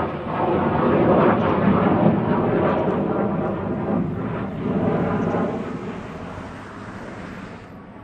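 Loud jet roar of a Mitsubishi F-2 fighter's single turbofan engine as it flies past overhead. The sound is loudest in the first couple of seconds and fades away over the last few seconds as the jet moves off.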